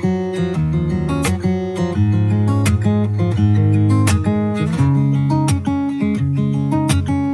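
Background music: a strummed acoustic guitar with a steady beat, an instrumental intro to a pop song.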